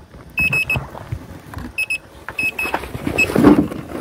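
Short high-pitched warning beeps in groups of two or three, repeating every second or so: the overheat alarm of a Gotway Nikola Plus electric unicycle that has reached its 65 °C cutoff. Some handling knocks come in under the beeps.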